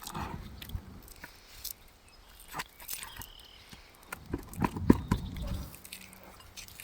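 Roof snake worked under an asphalt shingle to pull a nail, making scattered taps and scrapes. A cluster of heavier knocks comes about four to five and a half seconds in, loudest near five seconds.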